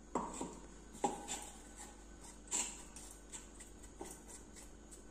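Light knocks and clicks of kitchen utensils being handled, about five scattered hits. The loudest come just after the start and about a second in, with another about two and a half seconds in.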